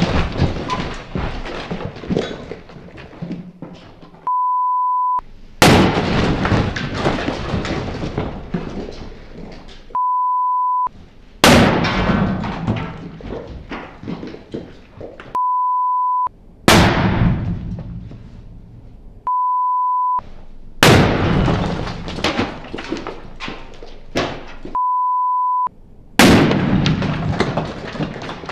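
A run of explosive blasts, five sudden loud bangs, each trailing off over a few seconds into crackle and scatter. Between each pair comes a steady test-tone beep about a second long.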